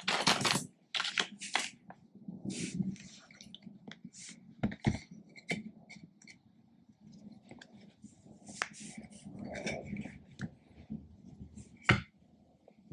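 Irregular clicks, taps and clatter of hands handling inline skate parts, wheels and small metal frame bolts, while the wheels are fitted back into the frames. A sharper knock comes about five seconds in and a louder one near the end.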